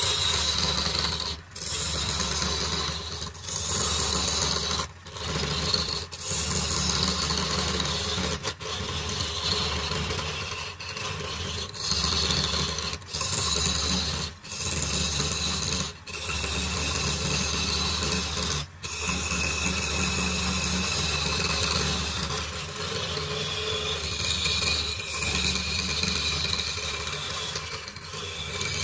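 Wood-turning chisel cutting a spinning wooden vase blank on a lathe: a steady scraping rasp in repeated passes, broken every second or two by brief gaps as the tool comes off the wood, over the steady low hum of the running lathe.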